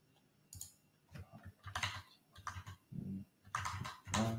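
Computer keyboard keystrokes: scattered single taps about every half second, then a quicker, louder run of strokes near the end as a date is typed into a form.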